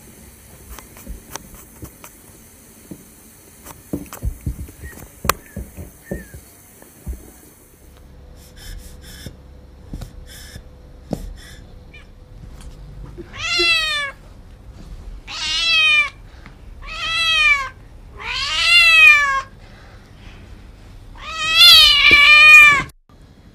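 A cat meows five times, loudly, each call rising then falling, the last the longest and loudest, while it is held down on its back. Scattered faint clicks and knocks come before the meows.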